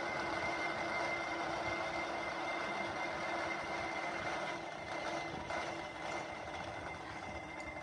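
Drill press running, its twist drill cutting a hole through thick steel plate, with a steady whine over the grinding of the cut.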